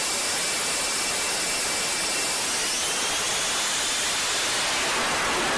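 F-35 fighter's jet engine running, a steady hissing rush with a faint whine that fades about halfway through.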